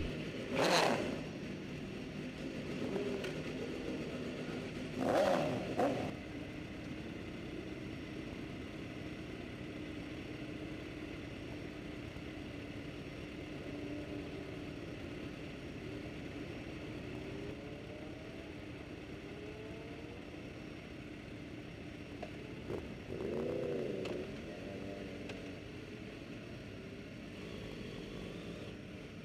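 Suzuki GSX-R750 inline-four motorcycle engine idling with other motorcycles idling around it. There are short blips of the throttle about a second in, at about five seconds, and once more at about twenty-three seconds.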